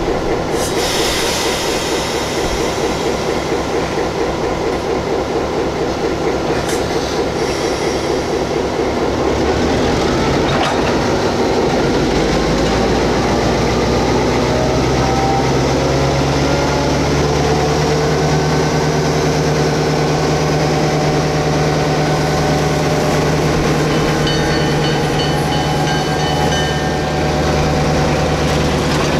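EMD SW-800 switcher locomotive working, its diesel engine running and going up in power about twelve seconds in to a louder, deeper steady drone. A faint high wheel squeal comes near the end.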